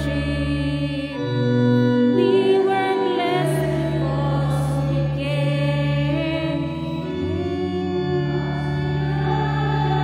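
Church organ playing sustained chords, changing every second or two, accompanying a sung entrance hymn with a wavering voice line.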